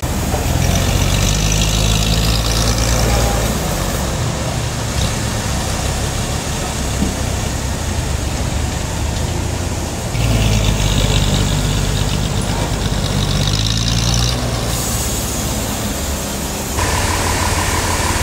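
Forklift engine running, its sound changing abruptly several times; a steady high tone joins near the end.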